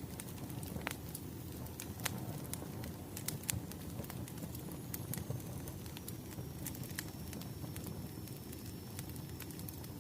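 Wood fire crackling: irregular sharp pops and snaps over a low steady rumble of burning logs.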